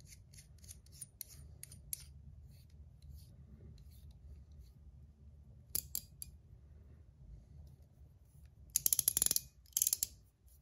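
Gao Studios Chiz mechanical fidget ring clicking as it is handled. Faint small metal ticks come first as the bottom part is screwed in. Near the end, two short bursts of rapid clicking come as its spring-loaded balls ride over the dense detent track.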